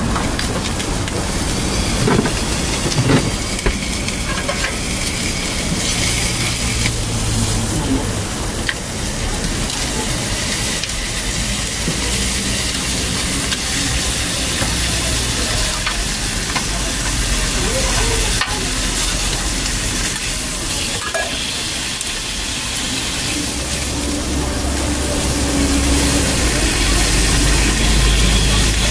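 Egg, sausages, ham and a meat patty sizzling steadily on a hot flat-top griddle, with sharp clicks of metal tongs and scissors working the food. A low hum comes in near the end.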